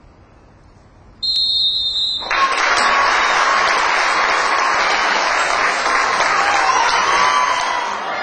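A referee's whistle gives one steady high blast of about a second, then the crowd breaks into applause that carries on steadily, with a few voices calling out near the end.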